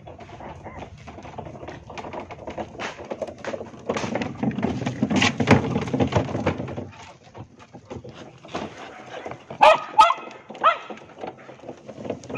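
A dog barking three times in quick succession about ten seconds in, over irregular knocking and rattling.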